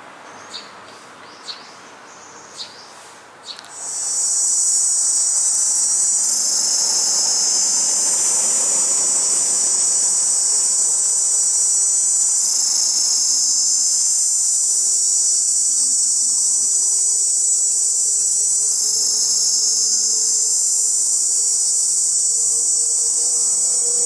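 Male cicada singing with its tymbals: four short clicks about once a second, then about four seconds in a loud, steady, high-pitched buzz that runs on unbroken.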